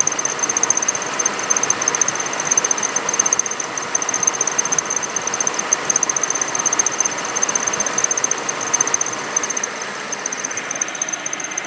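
Poly-V (serpentine) belt tensioner giving a high-pitched whistle that flutters rapidly, over the sound of the running engine. The whistle drops out briefly near the end, then returns.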